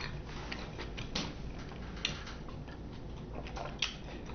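Eating sounds at a table: irregular small clicks and ticks of chewing and handling food, with one sharper click near the end.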